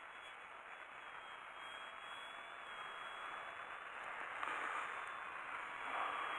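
Electric motor and propeller of a small foam RC Sbach 342 model plane in flight: a faint high whine with a slightly wavering pitch over a hiss, growing louder near the end as the plane comes back toward the camera.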